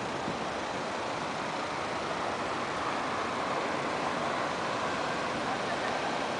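Steady road traffic noise from cars on a busy road: an even rush of tyres and engines, with no single vehicle standing out.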